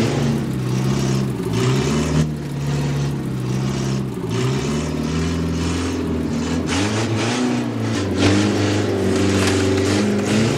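Small car's engine, as sound effect, revving up and down over and over in a wavering pitch.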